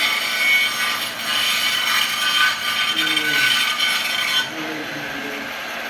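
Handheld Makita power tool cutting ceramic tile, a loud grinding noise that drops off sharply about four and a half seconds in.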